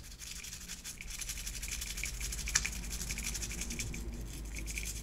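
Faint scratchy rubbing as fingers handle small plastic model parts, an interior and a steering wheel being fitted together, with a single light click about two and a half seconds in.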